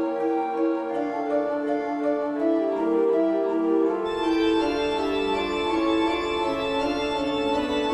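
Horror-style organ music playing slow, sustained chords that shift every second or so; about halfway through a low rumble comes in underneath and the sound grows brighter.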